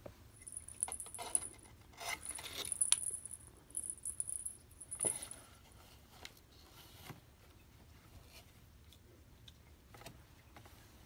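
Cats pawing at new toys and their packaging: a light metallic jingling mixed with crinkling and rustling for about five seconds, loudest around the middle, then only a few soft scuffs and taps.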